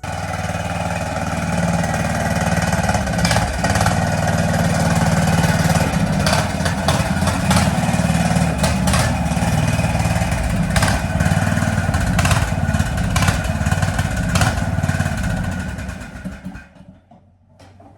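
Craftsman riding lawn mower's engine running steadily, with many sharp clicks and knocks over the drone. It fades out about sixteen seconds in.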